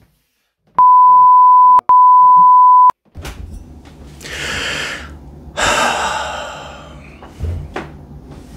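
Two loud, one-second bleeps of a pure tone, back to back, the kind used to bleep out words, with faint muffled speech beneath them. Then two long, heavy breaths over a low steady hum.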